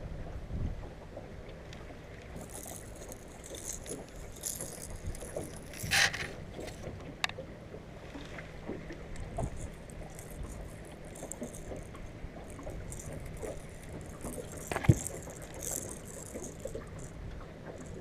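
Fishing boat on the water: a steady low hum with scattered light rattling of gear, a sharp click about six seconds in and a louder knock near the end.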